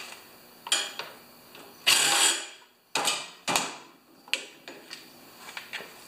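Cordless driver with a socket extension run in a few short bursts on a carburetor bolt, the longest about two seconds in, followed by lighter clicks of tools being handled.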